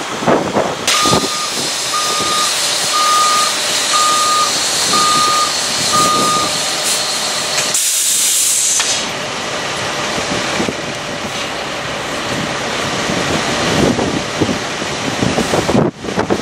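Reversing alarm on heavy machinery beeping six times, about once a second, over the steady noise of the machine running. About eight seconds in, a sharp hiss of air lasts about a second.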